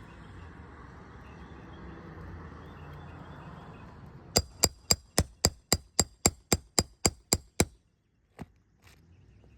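Low rustling and handling noise, then about a dozen sharp metallic taps in an even rhythm of about four a second: a hammer striking a roof-snake nail-removal tool to drive out a shingle nail. A couple of faint clicks follow.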